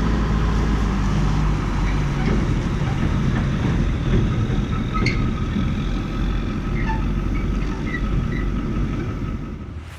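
Heavy farm machinery engine running steadily, a loud low drone that eases slightly near the end.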